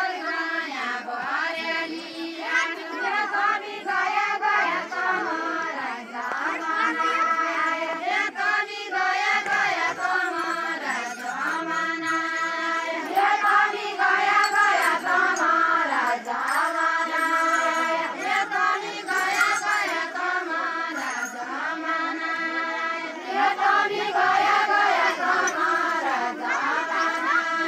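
A group of women singing a deuda folk song together, unaccompanied, in repeating sung phrases.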